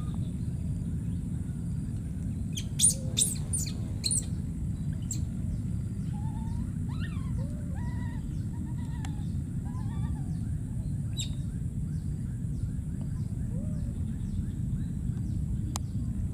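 Outdoor bird chorus: a quick cluster of sharp chirps about three seconds in, then scattered short whistled call notes. Under them run a steady high-pitched insect buzz and a low steady rumble.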